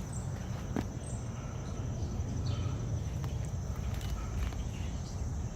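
Steady low background rumble with a continuous thin high-pitched tone and a few scattered faint clicks.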